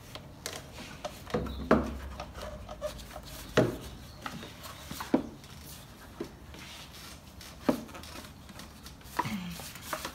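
Plastic air intake duct and air box parts being handled and fitted back in place by hand: a string of sharp clicks and knocks a second or two apart, with light rubbing in between.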